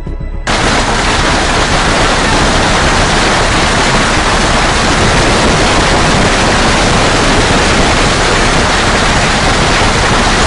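A loud, steady rushing noise that starts suddenly about half a second in and holds even until it cuts off.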